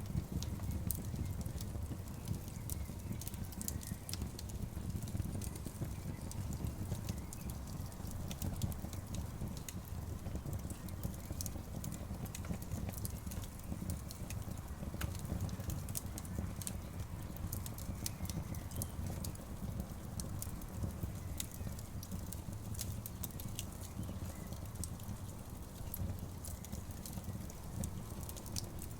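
Wood campfire burning, with frequent sharp crackles and pops scattered over a steady low rumble.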